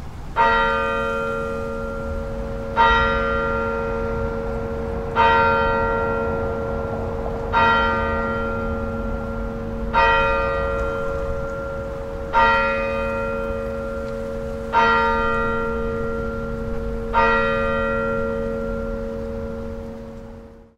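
A single church bell tolling slowly, struck eight times about every two and a half seconds, each stroke ringing on with a long hum until the next, over a steady low rumble. The sound fades out near the end.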